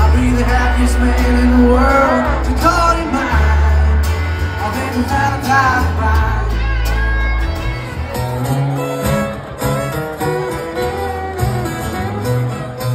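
Live country band playing loudly, heard from the crowd: electric and acoustic guitars over a heavy bass, with a singer's voice. About seven seconds in, the sound cuts to a different band's song.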